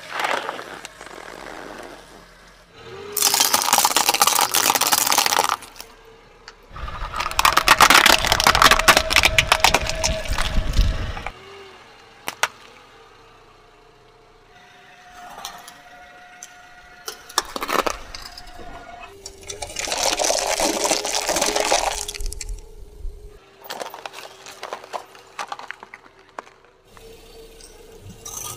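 A series of objects crushed one after another under a car tyre on asphalt. A liquid-filled balloon bursts and splashes right at the start, then come several loud spells of cracking and crunching with splashing water. Near the end a metal wire fry basket is flattened with metallic clinks.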